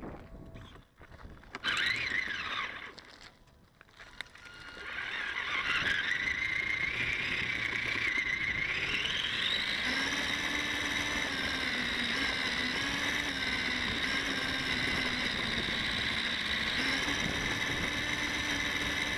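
RC car's electric motor and gear train whining as the car drives over gravel. A few short whines come about two seconds in; from about five seconds a steady whine sets in, climbs in pitch around eight to ten seconds in and then holds, over the rough noise of the tyres.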